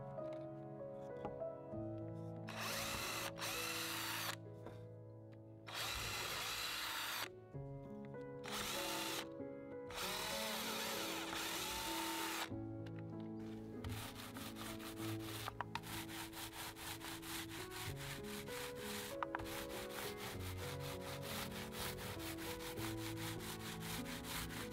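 Cordless drill boring into painted wooden blocks in four bursts of one to three seconds, over background music. From a little past halfway, a paint roller worked back and forth along a board, giving a fast, even run of clicks.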